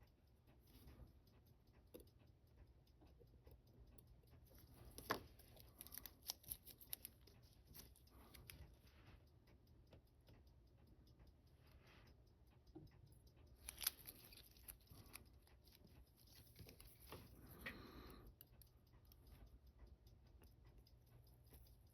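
Faint, scattered clicks and taps of small metal watchmaker's tools on a watch's case and parts during disassembly, with a short rustling scrape about 18 seconds in.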